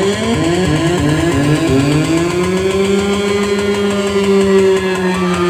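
Loud DJ sound system playing an electronic synth tone: a run of quick rising glides, then from about two seconds in one long held note that bends slowly.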